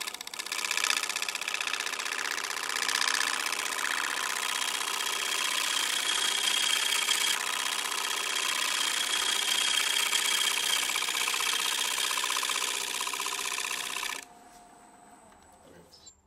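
Bowl gouge cutting a spinning drake elm crotch blank on a wood lathe: a steady hiss of wood being peeled away, with a fast flutter running through it. The cut stops abruptly about two seconds before the end, leaving the lathe motor's faint hum, which falls in pitch near the end as the lathe winds down.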